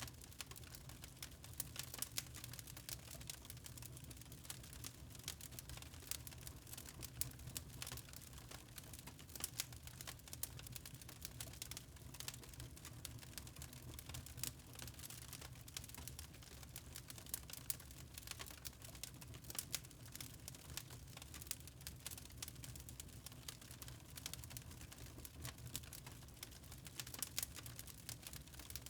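Wood fire crackling in a fireplace: irregular sharp snaps and pops over a low steady rumble.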